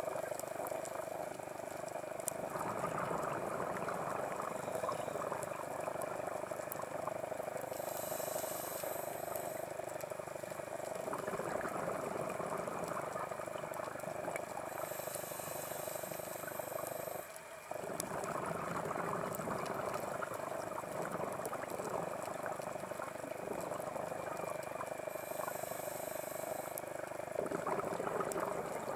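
Scuba regulator breathing underwater, heard over a steady hum. About every eight seconds a short, high hiss of an inhale through the regulator is followed by a longer rush of bubbling exhaled air.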